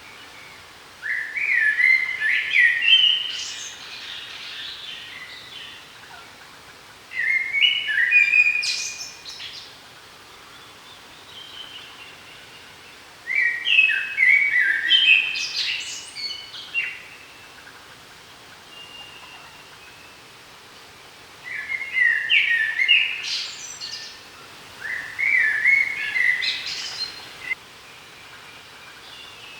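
A songbird singing, repeating the same short phrase of quick notes five times, each phrase lasting about two to three seconds with pauses of a few seconds between.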